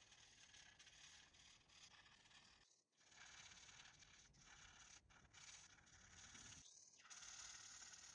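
Faint strokes of a felt-tip marker rubbing over the paper of a colouring book, with two brief breaks.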